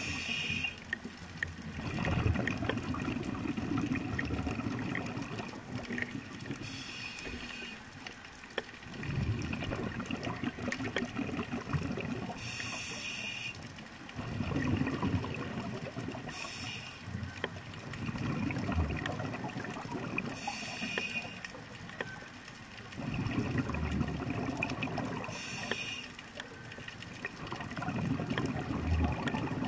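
Scuba diver breathing through a regulator underwater: a short hiss on each inhale, then a longer bubbling exhale, repeating about every four to six seconds.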